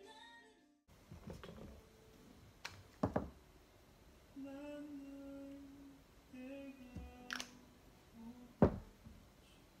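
Cosmetic containers set down and handled on a table: a few sharp knocks and clicks, the loudest near the end. In between, a woman hums two short held notes.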